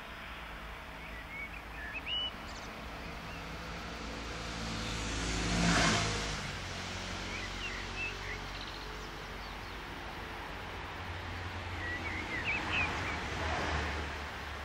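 A vehicle passes close by, loudest about six seconds in, with its pitch falling as it goes. Birds chirp a few times. Near the end the low rumble of an approaching Stadler FLIRT electric multiple unit builds.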